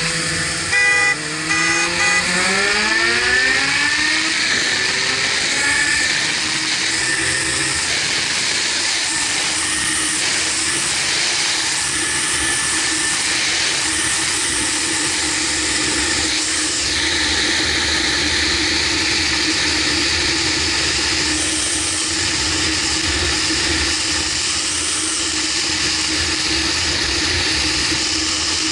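Kawasaki Versys 1000's inline-four engine pulling hard, its pitch rising over the first few seconds, then settling to a steady cruising drone. Heavy wind rush on the onboard microphone runs underneath.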